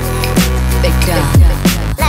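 Background music with a heavy electronic beat: deep bass hits that slide down in pitch, sharp hits and a melodic line over held bass notes.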